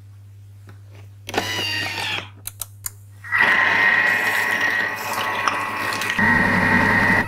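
Thermomix food processor's motor starting up at speed 4 about three seconds in and then running steadily with a whine, mixing cookie dough in its bowl. Before it starts there is a brief rustle and a few clicks.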